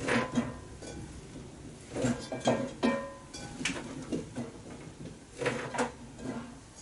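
Vegetables being dropped and packed into a cooking pot around a whole chicken: a run of irregular knocks and clunks, several close together around the second and third seconds and again near the end.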